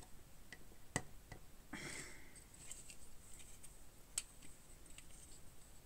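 Wange plastic building bricks being handled and pressed together: a few sharp clicks and taps, the loudest about a second in, with a short rustle of pieces about two seconds in.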